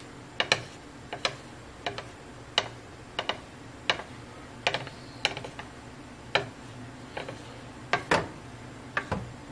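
Wooden spatula knocking against the sides and rim of a cooking pot while stirring soup: short sharp clacks at an uneven pace, about one or two a second.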